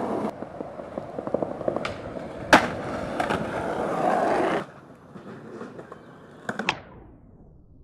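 Skateboard wheels rolling over concrete, with one sharp clack of the board about two and a half seconds in. The rolling drops away sharply a little past halfway, and a couple of quicker, quieter clacks of the board come near the end.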